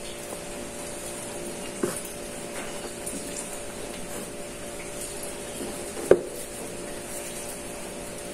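A steady machine hum with a few fixed pitches. A soft knock comes about two seconds in, and a sharper, louder knock about six seconds in.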